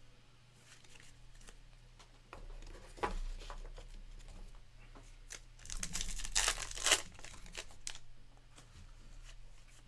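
Trading-card packaging being handled: crinkling and tearing of a wrapper or plastic, with a few light clicks about three seconds in and the loudest crinkling around six to seven seconds in.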